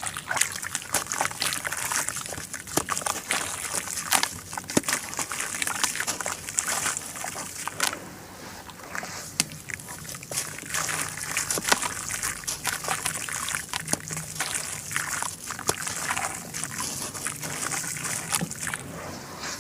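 Charcoal being crumbled in water: a dense, irregular crunching and crackling with sloshing and trickling.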